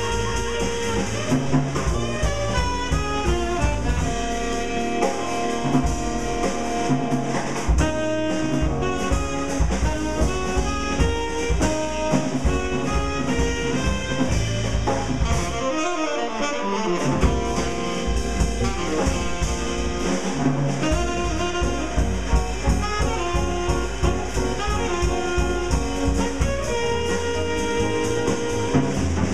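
Live hard-bop jazz quartet playing: saxophone leading over upright bass, piano and drum kit. The bass and drums drop out briefly about sixteen seconds in, then the full band comes back.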